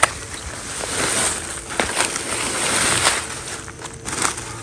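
Footsteps and rustling in dry leaf litter, with scattered crunches and scrapes that swell and fade a few times.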